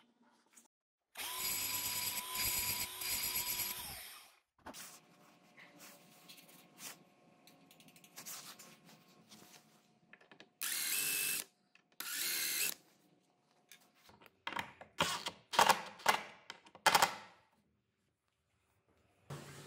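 A small power tool runs steadily for about three seconds. Later comes a drill-driver in two short bursts, driving two screws through a metal washer into a wooden strip. A run of sharp clicks and knocks follows.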